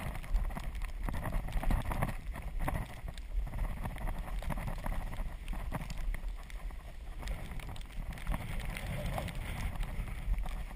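Azub recumbent trike rolling over a snow-covered road: tyres crunching through the snow, with irregular knocks and rattles from the trike and a low rumble on the microphone.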